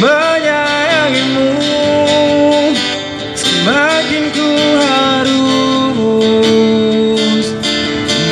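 A man singing a slow song into a microphone through a PA loudspeaker, over strummed acoustic guitar. He holds long notes, sliding up into a new phrase at the start and again about midway.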